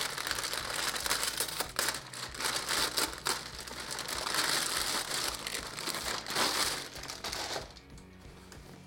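Thin clear plastic packing bag crinkling and rustling as it is handled, opened and a pair of trousers pulled out of it; the crinkling stops about three-quarters of the way through.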